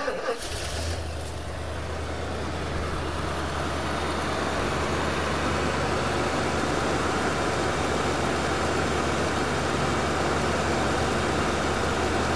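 A 1973 Mercury Marquis Brougham's 460 V8 starts from cold, catching within about half a second of cranking. It then runs steadily on fast idle, super smooth.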